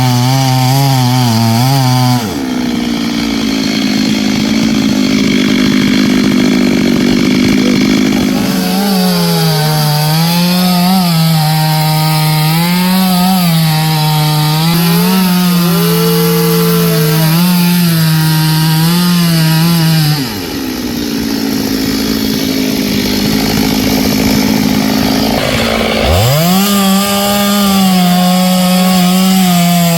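Stihl two-stroke chainsaw running at high revs and cutting wood. Its pitch rises about 2 s in, then wavers and sags as the chain bites under load, and it dips briefly once near the end before picking up again.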